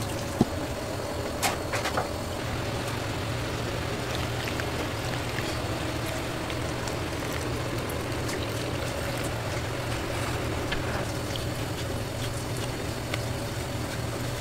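Steady low mechanical hum with a faint steady tone over it, and a few light clicks in the first two seconds.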